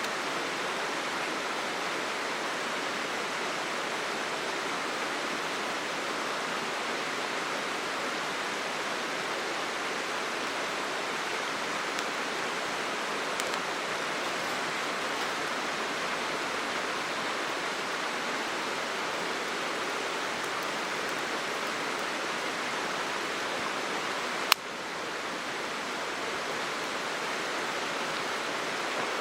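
Steady rushing of flowing stream water, an even noise throughout, with a single sharp click near the end.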